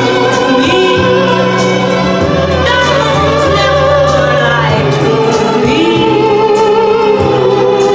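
Music with singing, loud and continuous.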